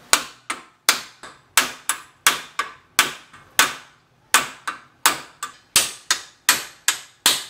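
A hammer strikes a wooden block in a quick, steady series of about twenty sharp knocks, roughly three a second, with a short pause partway through. The blows drive a new wheel-bearing race into a Ford Festiva's front steering knuckle.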